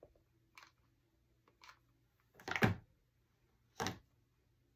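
Four short handling sounds as a hot glue gun is used and a small decoration is pressed onto a cardboard gift box; the third, a knock just past halfway, is the loudest.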